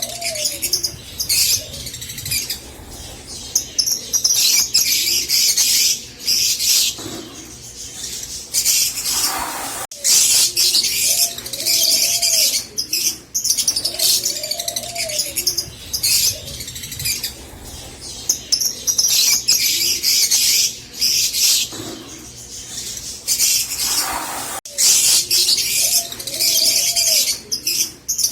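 Green Fischer's lovebirds chattering and singing, rapid high-pitched chirps running together in bursts of a second or two.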